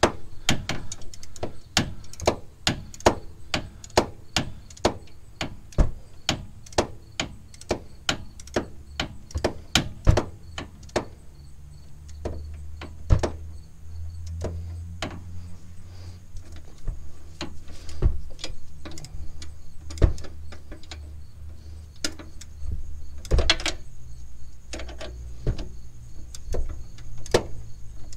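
A long-handled ratchet clicking as a sway bar end link nut is run down in short strokes, about two sharp clicks a second, then more sparsely after about ten seconds. A low hum sits underneath through the middle.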